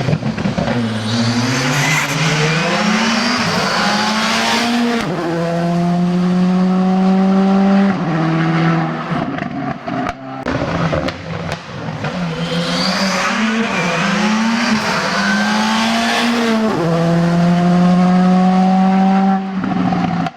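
Rally car engines accelerating hard through a stage section, revs rising and falling with gear changes and then held high and steady for a few seconds. The same pattern comes twice, a second car taking over about ten seconds in.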